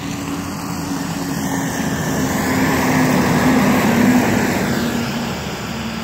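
Freightliner rear-loader garbage truck, fitted with a snow plow, driving past: its diesel engine and tyre noise swell as it comes close, peak about halfway through, then fade as it pulls away.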